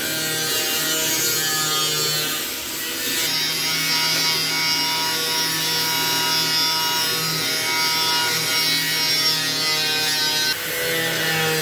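A steady mechanical hum from a machine running in the workshop, with a rasping, scraping noise laid over it from about three seconds in until about ten and a half seconds.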